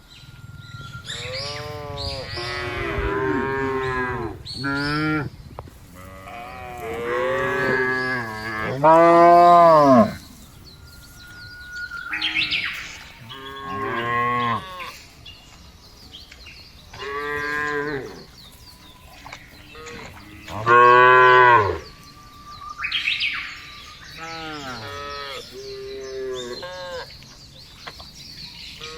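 Cows mooing over and over, a dozen or so long calls that rise and fall in pitch, some overlapping as if from several animals. Two calls, about nine and twenty-one seconds in, are much louder than the rest.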